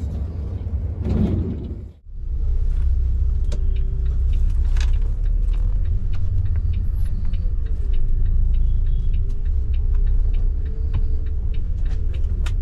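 Steady low rumble of a moving bus, with a faint wavering engine tone and many small rattles and clicks. The sound briefly drops out about two seconds in.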